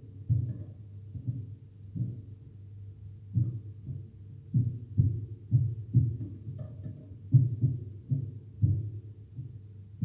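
Dull, deep knocks at an irregular pace of one or two a second, coming quicker in the second half: a pet canary pecking seed from a plastic seed cup in its cage.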